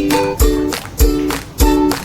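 Background music with a steady beat: kick-drum hits about every 0.6 seconds under plucked-string chords.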